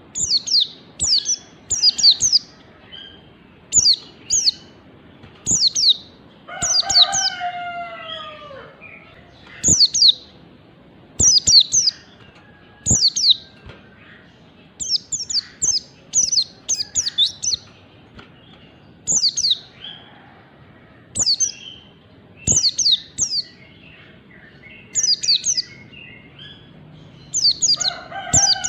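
White-eye (pleci) singing the fast 'ngalas' song: short, high chirped phrases in quick clusters, repeated every second or two. Twice, about seven seconds in and again near the end, a lower call slides downward beneath the chirps.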